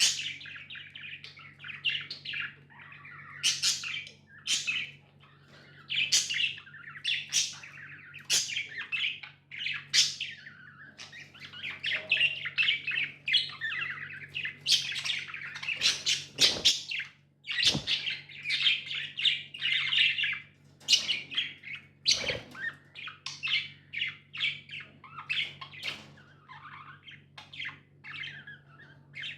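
Budgerigars chirping and warbling continuously: a dense stream of short, high chirps with some harsher squawks, and a few sharp clicks around the middle. A steady low hum runs underneath.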